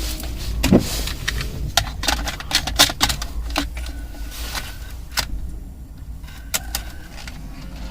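Plastic push-buttons on a Mercedes ML W163 radio head unit clicking as they are pressed, a dozen or so irregular presses: the radio's security code being keyed in.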